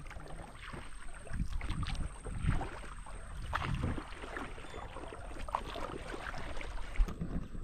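Water splashing and sloshing around a small boat, with irregular low thumps and a sharp knock near the end.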